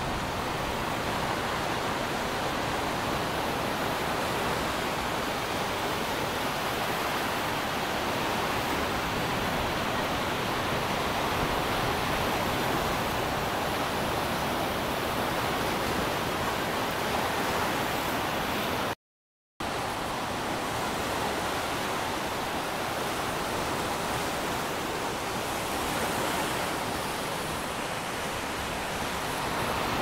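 Ocean surf, a steady rushing wash of waves with no distinct breaks. It drops out to silence for about half a second roughly two-thirds of the way through.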